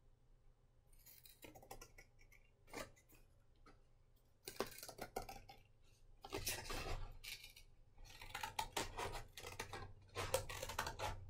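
Scissors cutting through a small paper plate: a few faint snips at first, then from about four seconds in, runs of irregular snipping with short pauses between them.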